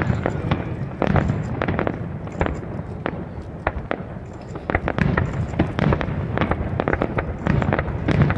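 Fireworks display: a rapid barrage of sharp bangs and crackles over a low rumble, several reports a second. It thins out briefly a few seconds in, then builds again.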